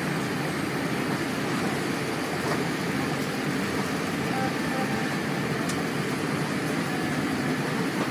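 Steady airliner cabin noise while the plane taxis after landing: the even rush of the engines and the cabin air system heard from inside.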